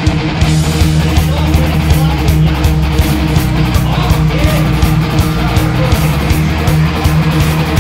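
Guitar-driven rock music with a steady beat.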